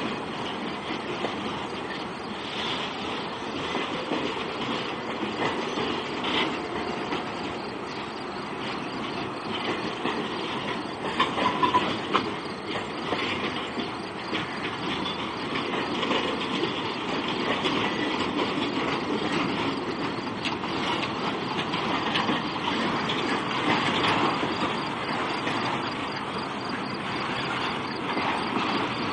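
Freight train of autorack cars carrying Hummers rolling past: a steady rumble of wheels with clicking and clatter over the rail joints, and a brief wheel squeal about eleven seconds in.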